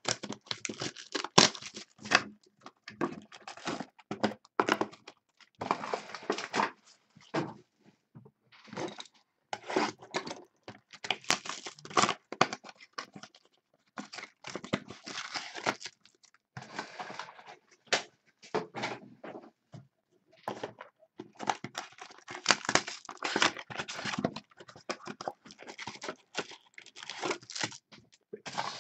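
Wrapping being torn off a sealed box of 2016 Bowman's Best baseball cards and crinkled, in irregular bursts of tearing and rustling with short pauses.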